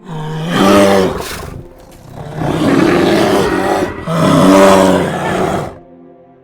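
A large animal roaring three times in close succession; the middle roar is rougher and noisier than the other two.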